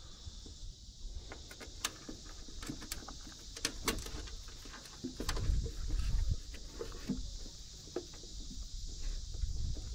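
Scattered light clicks and rustles of a thin cable being fed and pulled through a fitting in a boat's side, with low rumbles on the microphone about halfway through.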